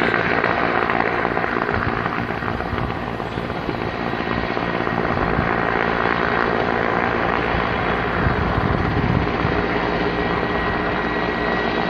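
Helicopter running steadily overhead, its engine and rotor noise holding at an even level with several steady tones.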